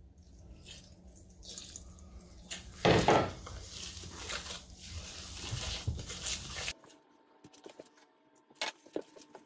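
Gloved hand squishing and kneading wet ground pork mixed with beer in a stainless steel stockpot, with a louder thump about three seconds in. The squelching cuts off abruptly after about seven seconds, leaving only faint clicks.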